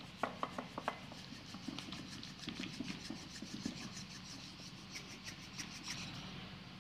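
Spoon stirring thick sweetened cream mixture for kulfi in a bowl: faint, irregular scraping with light clicks of the spoon against the bowl.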